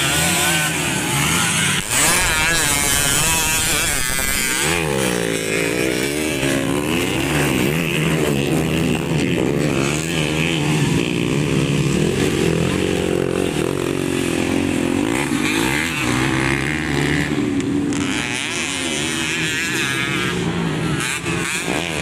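Several modified underbone motorcycles racing, their engines revving and easing off in overlapping layers, pitch rising and falling as bikes pass, most sweepingly around five seconds in.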